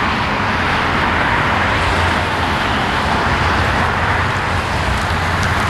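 Steady vehicle noise: an even rushing sound over a low hum, holding at one level throughout.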